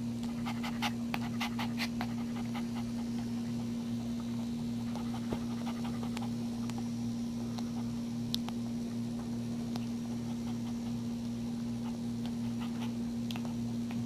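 Soft, quick clicking and breathing sounds from a mother dog nursing her newborn puppy, about four clicks a second for the first two seconds and then only now and then, over a steady low hum.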